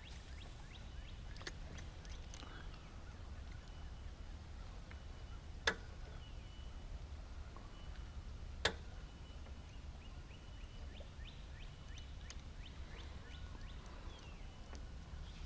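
Faint outdoor ambience: birds chirping in short, scattered calls over a low steady rumble. Two sharp clicks stand out, about six and nine seconds in.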